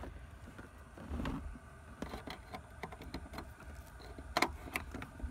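Light plastic clicks and handling noise as a wiring-harness connector is fed into and pushed onto the port on the back of a car's factory radio, with a sharper click about four seconds in.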